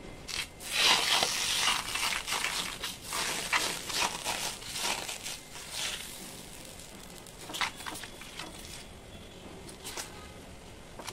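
Batter sizzling and crackling as it is spread in circles over a hot metal pan with the base of a small bowl. The dense crackle and scraping die down after about six seconds, leaving a few scattered clicks.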